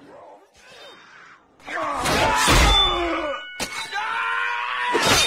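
Movie soundtrack of an arena fight. Quiet at first, then about two seconds in a loud burst of fight noise with a deep rumble and a sharp click, followed by a man's long, strained yelling cry near the end.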